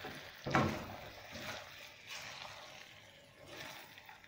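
Spatula stirring thick, wet cooked chana dal in a nonstick karahi: a few soft scraping, sloshing strokes of the lentil mixture against the pan, the clearest about half a second in.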